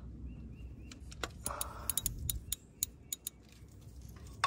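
Ratchet wrench and 13 mm socket clicking irregularly against metal as the socket is fitted onto the timing-belt tensioner bolt.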